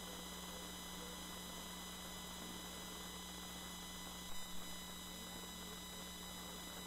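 Steady electrical mains hum and hiss from the recording, with two brief soft thumps a little over four seconds in.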